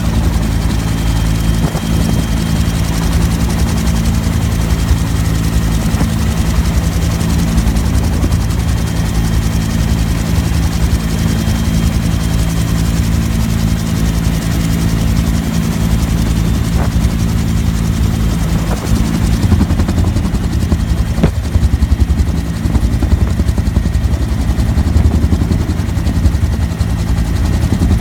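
Bell UH-1 Huey helicopter in flight, heard from inside the cabin: the two-blade main rotor's steady, rapid beat over the even drone of the turbine engine.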